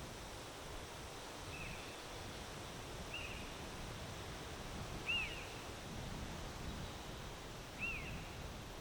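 Wind blowing steadily, with a small bird giving four short, high chirps a second or two apart; the last two are the loudest.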